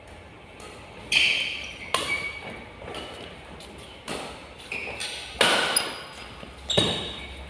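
Badminton rackets striking the shuttlecock in a fast doubles rally: about six sharp hits roughly a second apart, each ringing briefly in the hall.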